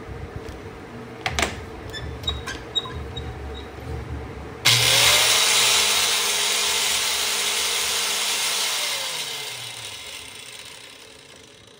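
A few light metal clinks, then an Estino angle grinder with a cut-off disc is switched on about halfway through, spins up quickly and runs freely with its motor whine, not cutting anything. It is then switched off and winds down, its pitch falling and the sound fading out.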